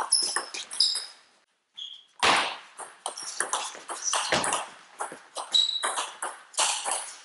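Table tennis rally: quick clicks of the ball off the rackets and table, with shoes squeaking on the sports hall floor. Two heavier thuds come about two and four seconds in.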